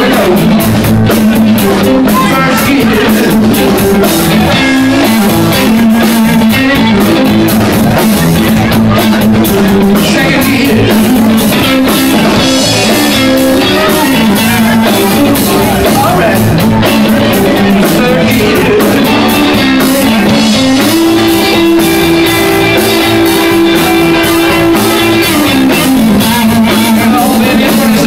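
Live blues band playing loud and without a break: electric guitar, electric bass and drum kit.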